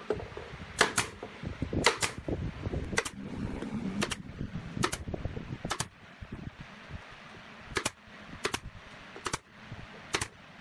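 Pneumatic nail gun firing nails into wooden door moulding: about a dozen sharp shots, mostly about a second apart, a few in quick pairs.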